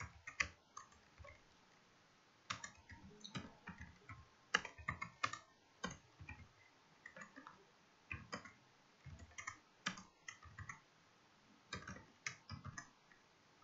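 Keystrokes on a computer keyboard, typed in short irregular bursts with brief pauses between them.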